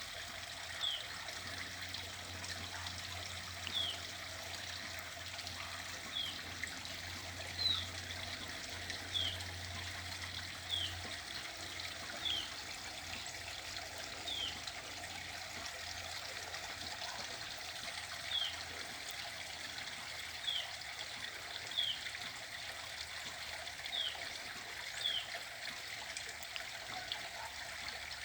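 Small stream trickling and running steadily. A bird repeats a short, high, down-slurred call note every second or two.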